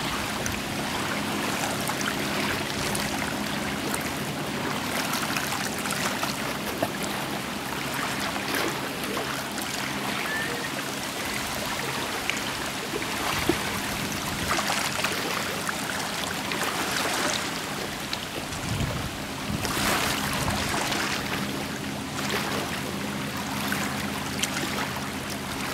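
A steady rush of water with the even, low hum of a Mercury 115 outboard motor running at low speed under it.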